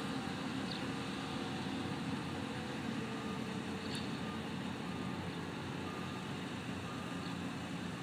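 Heavy construction machinery, such as the crane lifting the steel roof truss, running steadily with a diesel engine hum, with a faint reversing alarm beeping about once a second.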